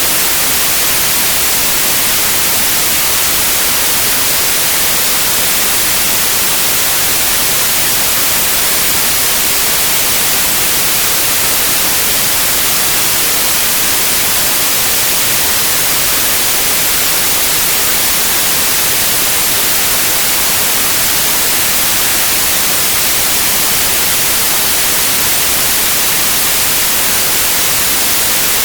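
Steady white noise: an even, unchanging hiss spread across all pitches and brightest at the top.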